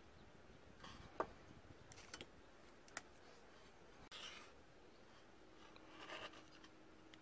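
Faint handling sounds: a few light clicks as a metal knife blank and a marker are handled on a wooden board, and short scratchy strokes of a felt-tip marker drawing on a sanding disc, about four and six seconds in.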